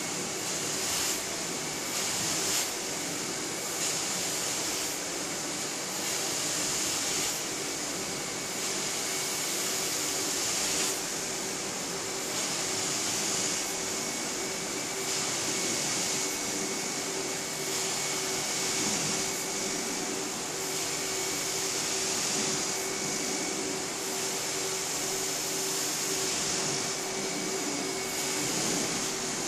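Carpet extraction machine sucking air and water up through its wand and hose as the wand is pushed and pulled over the carpet: a steady motor whine under a loud hiss that swells and eases about every second and a half with each stroke.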